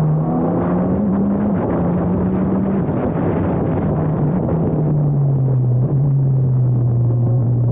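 Formula Abarth single-seater's 1.4-litre turbocharged four-cylinder engine running hard. Its note rises over the first second and a half, steps down, then falls further and settles to a steady lower pitch.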